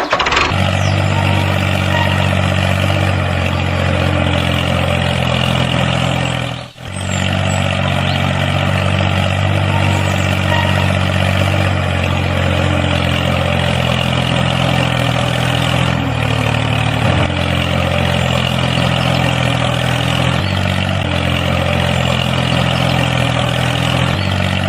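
Truck engine running steadily, with a short break about seven seconds in.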